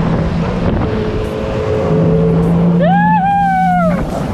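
Jet ski engine running steadily at speed, with wind and spray rushing past. Near the end, a drawn-out high-pitched call rises and then slowly falls for about a second.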